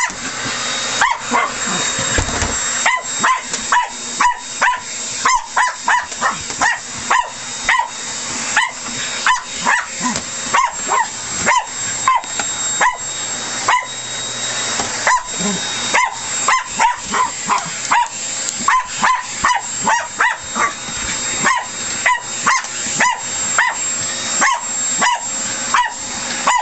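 West Highland white terrier barking over and over, about two barks a second, with a vacuum cleaner running steadily underneath.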